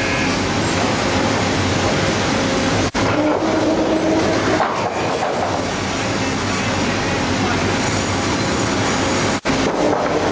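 Sawmill lumber transfer chain conveyors and mill machinery running with a loud, steady noise as boards are carried across the deck. The sound breaks off for an instant about three seconds in and again near the end.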